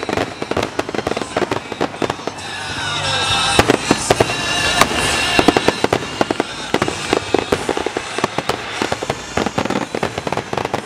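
Fireworks finale: a dense, rapid barrage of bangs and crackling shell bursts, swelling louder for a few seconds in the middle.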